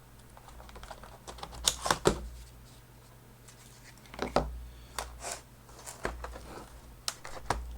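Sharp plastic clicks and knocks, about eight spread irregularly, from a Toshiba Satellite C650D laptop being handled as its battery is unlatched and taken out.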